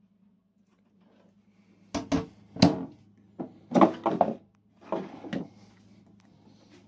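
Cabinet drawers and cupboard doors being opened and pushed shut by hand. A run of clunks and knocks begins about two seconds in and lasts a few seconds.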